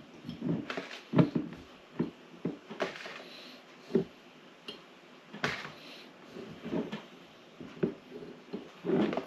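Peeled eggs being pushed by hand into glass mason jars, giving irregular short knocks against the glass about once a second.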